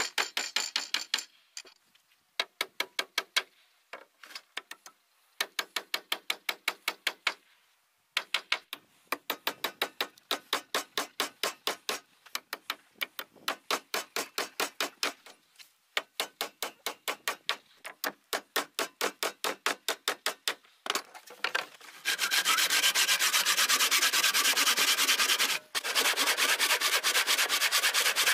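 Hammer driving nails into a wooden beam, in runs of quick blows with short pauses between them. About 22 seconds in, a hand saw starts cutting through a wooden board with fast, continuous strokes.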